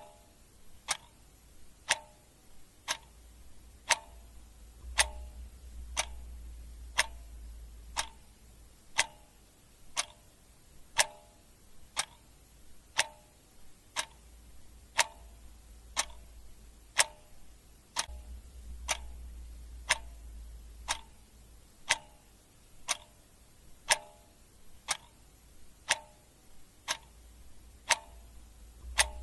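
Clock ticking steadily, about two ticks a second, alternating tick and tock. A faint low rumble swells underneath twice.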